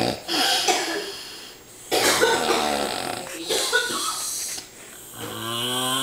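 A man snoring in his sleep through an open mouth: four long, rasping snores about a second and a half apart. The last one ends in a moan-like tone that falls in pitch.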